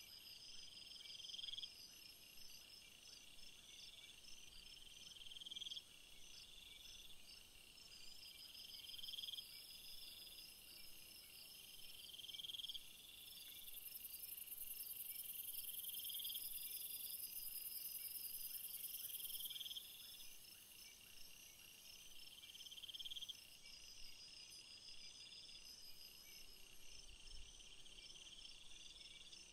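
Faint chorus of insects chirping: a buzzy phrase repeats every second or two over a steady run of quick, high pulses. A high hiss joins for several seconds in the middle.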